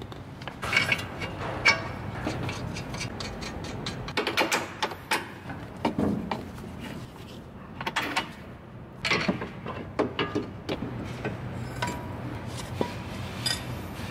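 Irregular clinks, knocks and clatter of metal suspension parts and hand tools being handled in a car workshop, over a steady low hum.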